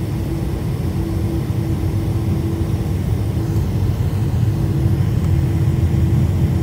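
Boeing 747 airliner taxiing, heard inside the cabin: a steady low rumble of engines and rolling that grows slightly louder, with a faint steady hum that comes and goes.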